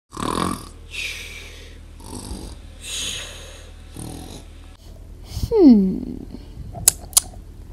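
A person making exaggerated mock snoring for a sleeping puppet: about five breathy snores roughly a second apart. Then a loud falling vocal groan as it wakes, followed by two sharp clicks near the end.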